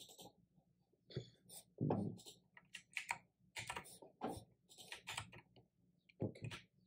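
Irregular keystrokes on a computer keyboard, typing in a username and then a password at a login prompt.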